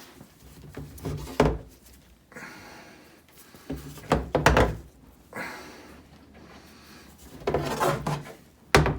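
Knocks and clunks of things being handled and set down on a hard surface. They come in three short clusters: about a second and a half in, around four seconds in, and near the end.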